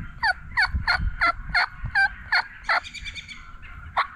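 Wild turkeys calling: a quick run of about eight short calls, each falling in pitch, about three a second, then a pause and one more call near the end.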